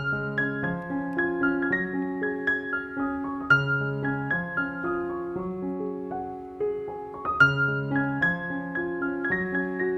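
Background piano music: an unhurried melody over sustained low chords.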